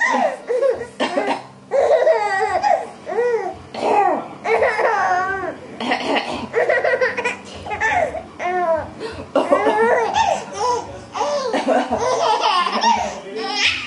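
A 5-month-old baby belly-laughing over and over, in high, bouncing bursts, set off each time by a woman's short coughs between the laughs.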